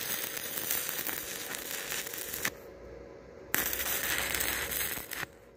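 Stick-welding arc crackling as a 2 mm electrode at about 46 amps welds thin-walled structural steel tube. The arc breaks off about two and a half seconds in, strikes again a second later and stops shortly before the end.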